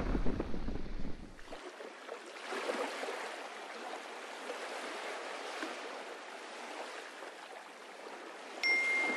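Wind buffeting the microphone over water on a sailing yacht, cut off suddenly about a second and a half in and followed by a softer, even rushing of water. Near the end a single high ringing tone sounds for about a second.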